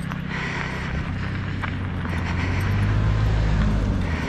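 A car driving past close by on a slushy road: a low engine and tyre rumble that builds over a few seconds, peaks as the car comes alongside and drops off near the end.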